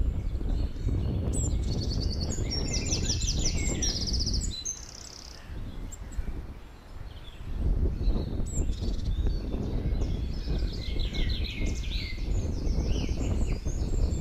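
Songbirds singing, with quick trilled phrases about two seconds in and again near the end, over a low rumbling noise that eases off for a few seconds in the middle.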